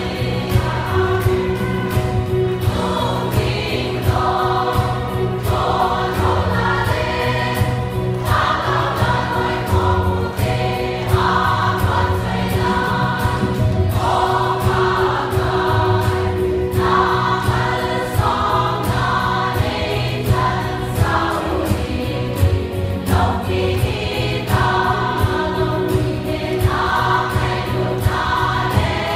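A large choir of women singing a Christian choral song together, phrase after phrase.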